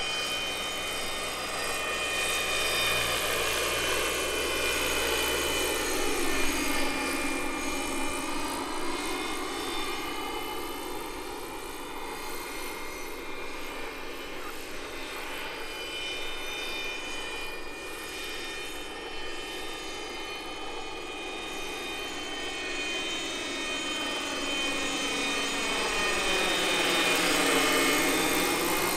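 Electric RC scale model of an Aerospatiale SA-315B Lama helicopter flying past: the rotor noise blends with the steady high whine of an onboard Benedini sound module imitating the turbine. It grows louder as the helicopter passes close, about six seconds in and again near the end.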